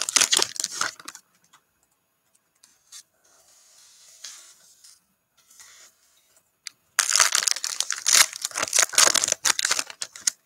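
Foil trading-card pack wrappers being torn open and crinkled by hand. There is loud crinkling at the start, a quieter stretch with faint handling sounds, then loud crinkling again from about seven seconds in.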